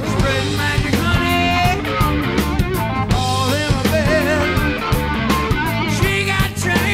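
Rock song with singing over drums and guitar, at a steady beat.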